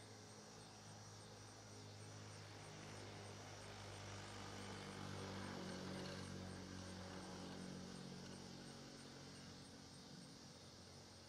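Faint, distant low engine drone that swells to its loudest about halfway through and then fades, as a motor passes by.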